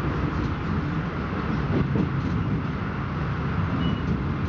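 Steady rumble of a moving passenger train heard from inside the carriage, the wheels running along the track.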